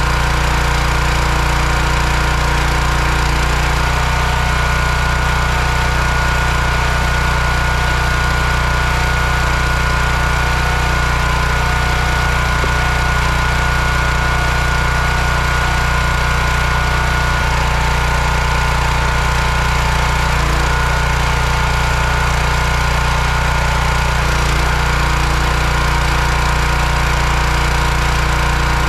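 Small single-cylinder petrol engine of a hydraulic log splitter running steadily at a constant speed, its note changing slightly a few times.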